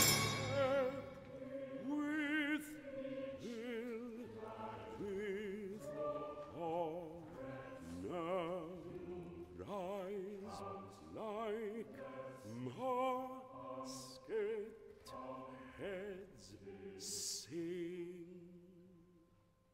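Baritone and chamber choir singing soft, short, separated notes with vibrato, one syllable roughly every second and a half. The notes die away near the end.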